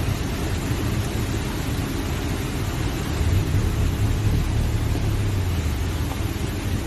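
Hurricane-force wind buffeting the microphone: a steady rushing noise over a deep rumble, with a stronger gust from about three seconds in.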